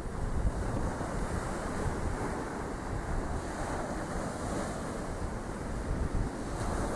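Sea waves breaking and washing up a shingle beach, a steady surf noise, with wind buffeting the microphone as a low rumble.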